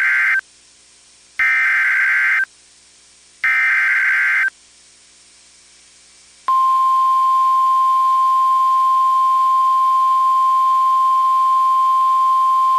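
NOAA Weather Radio emergency alert tones: the screeching digital SAME header bursts, each about a second long, with the first ending just after the start and two more following a second apart. About 6.5 s in, the steady 1050 Hz warning alarm tone starts, one loud unbroken beep-like tone, signalling that a warning, here a severe thunderstorm warning, is about to be read.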